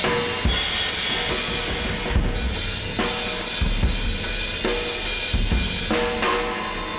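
Drum kit being played: kick drum, snare and cymbals in a loose, uneven groove, the cymbals ringing over the hits throughout.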